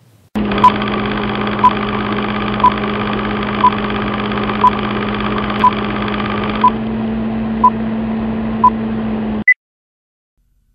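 Film-countdown sound effect: the steady whirr of a running film projector with a low hum, and a short beep every second, nine in all. A single higher-pitched beep comes at the end, then the sound cuts off abruptly.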